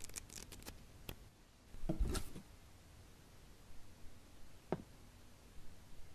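Hands handling a paper booklet and plastic DVD cases on a shelf: a few light clicks and rustles at first, a brief louder rustle about two seconds in, and a single sharp click near the end.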